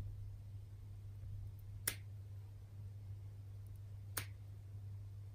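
Small cat nail clippers snipping through a cat's claws: two sharp clicks about two seconds apart.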